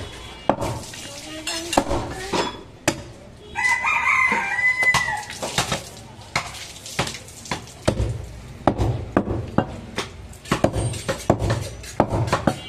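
A butcher's long knife knocking and scraping against a wooden chopping block as goat meat is cut, in quick irregular strokes. About three and a half seconds in, a rooster crows once for more than a second, louder than the cutting.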